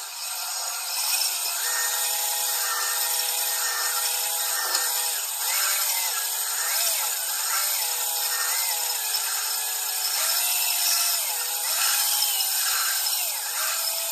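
A power drill spinning a cylinder hone inside the old compressor's cylinder bore. It makes a continuous abrasive scraping, while the drill motor's whine rises and falls as its speed is varied.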